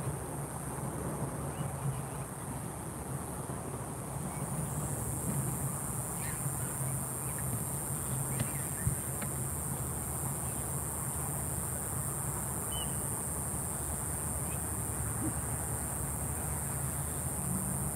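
Evening ambience of a steady high-pitched insect drone, which grows louder about five seconds in, over a steady low hum, with a few faint chirps. No thunder is heard.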